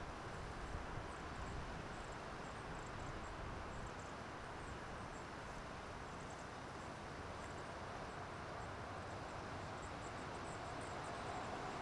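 Steady outdoor background noise with faint, irregular high chirping. Near the end a pickup truck approaches along the highway, its road noise rising.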